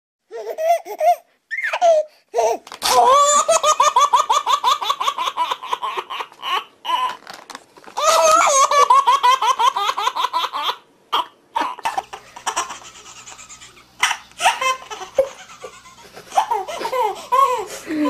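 A baby laughing in several long fits of quick, repeated belly laughs and giggles, with short breaks between them and a quieter spell about two-thirds of the way through.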